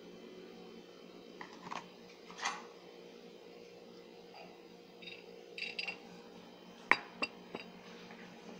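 Plastic rice paddle knocking and scraping against a plastic mixing bowl while stirring cornstarch into a mashed potato mixture: a scattering of short clicks, the sharpest about seven seconds in. A steady low hum runs underneath.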